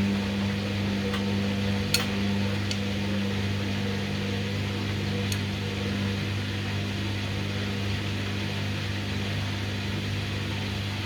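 Hoover washing machine struggling to spin: a steady low motor hum with some noise over it, and a sharp click about two seconds in, with a few fainter ticks.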